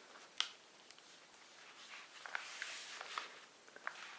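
Paper and card being handled in a handmade journal: a sharp tap about half a second in, then soft rustling with a few small ticks.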